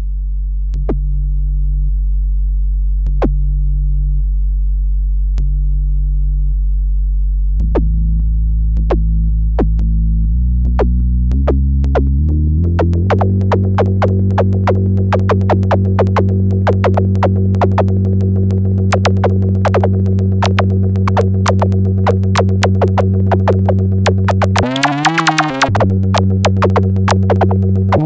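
Electronic synthesizer droning on low sustained tones that shift pitch in steps, with sharp clicks that start sparse and grow rapid and dense. A wobbling pitch sweep comes near the end.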